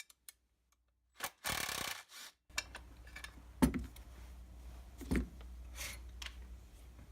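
Hand tools working the felling-dog bolts on a chainsaw body: a short rubbing scrape of a wrench on a nut, then two light knocks of metal parts.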